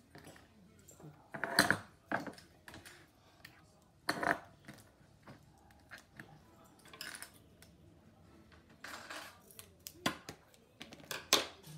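Craft tools and cardboard being handled on a table: scattered clicks and knocks with short rustling scrapes at irregular times. The sharpest knocks come about one and a half, four, ten and eleven seconds in.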